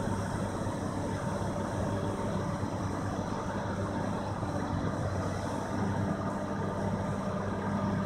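Heavy diesel engines of the recovery tow trucks and excavator idling steadily, a low, even hum.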